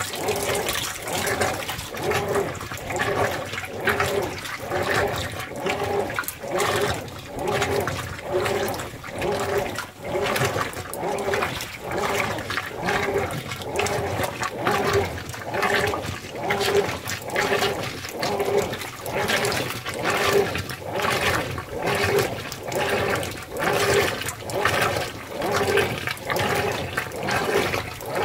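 Whirlpool Cabrio top-load washer agitating a load on its deep-water setting: water and clothes slosh back and forth in even surges, a little faster than one a second.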